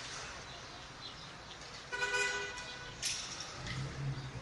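A single short car horn toot, about half a second long, over steady city traffic noise.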